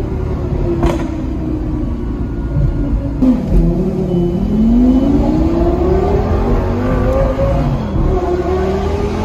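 Car engine heard from inside the cabin, pulling through the gears: the pitch drops about three seconds in at a gear change, then climbs steadily, with another drop and climb near the end. A sharp click about a second in.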